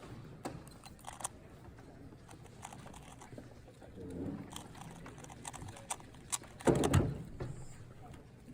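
Plastic 2x2 speed cube being turned quickly, giving scattered clicks and clacks, with one louder thump about seven seconds in.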